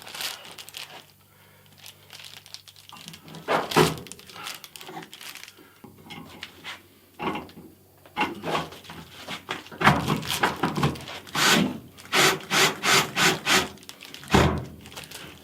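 Conduit being fitted and fastened to a wall by hand: scattered knocks, rubbing and scraping, with a quick run of short, even scrapes near the end.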